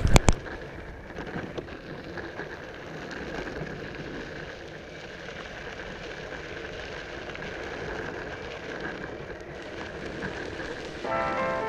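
Electric skateboard's 120 mm Cloudwheels rolling over a dirt and grass track, a steady gritty rolling noise. There are a couple of sharp clicks at the very start, and background music comes in near the end.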